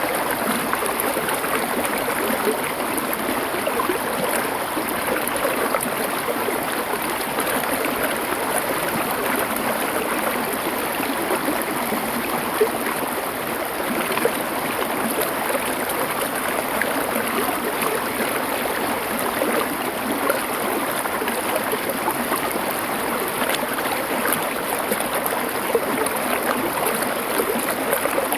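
Stream water flowing over stones: a steady, even rush of water with fine bubbling detail throughout.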